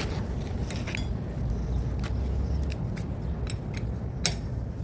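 Metal tire-changing tools clinking and tapping against each other: several separate sharp clinks, the loudest about four seconds in, over a steady low rumble.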